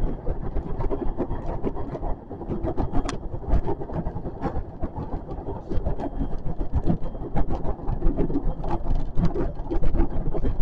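JR West 521 series electric train running along the track, heard from inside at the front: a steady rumble of wheels and running gear with many irregular clicks and knocks.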